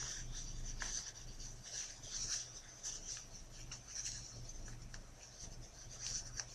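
Fabric of a ring sling rustling and rubbing in irregular short swishes as it is handled around a baby, over a faint low steady hum.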